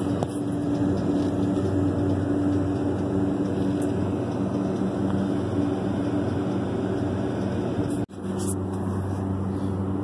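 Steady hum of running rooftop HVAC machinery: a low drone with a few pitched tones over it. The sound drops out sharply for an instant about eight seconds in.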